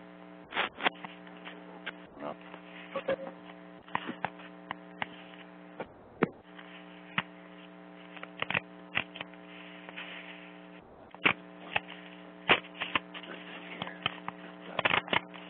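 Steady electrical mains hum on the recording's audio line, a low buzz with a ladder of overtones that cuts out briefly twice, with scattered short clicks and rustles over it.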